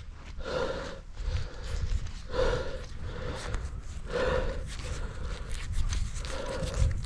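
A person breathing hard close to the microphone, winded: heavy breaths in and out, about one a second.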